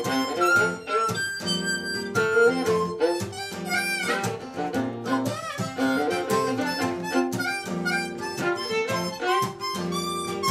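Harmonica playing the lead line over acoustic guitar and fiddle, a small folk-blues band playing live and unamplified-sounding.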